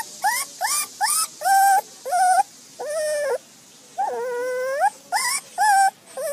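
Pomeranian puppy whining: a string of about ten short, high-pitched whines, many bending upward at the end, with one longer, lower whine about four seconds in.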